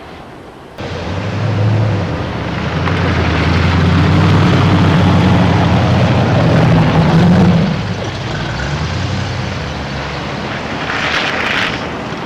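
A motor vehicle's engine running close by, starting abruptly about a second in, loudest through the middle and easing off after about eight seconds.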